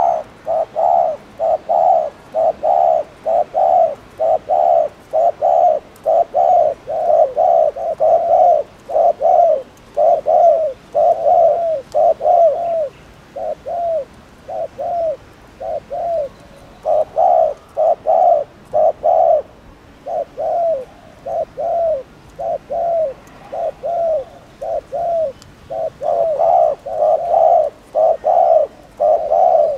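Spotted dove cooing ('gù'): loud low coos repeated quickly, two to three a second, in runs broken by short pauses.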